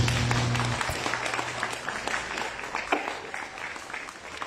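Audience clapping after a graduate's name is called, the applause thinning out and fading over a few seconds.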